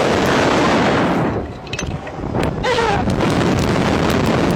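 Loud wind buffeting the microphone, easing off briefly about a second in before returning, with a short voice-like cry near the three-second mark.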